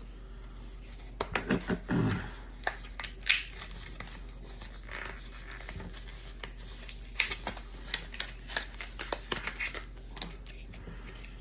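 Hands handling small plastic packaging, making irregular clicks, taps and light scratches, with a few louder knocks near the start and in the middle.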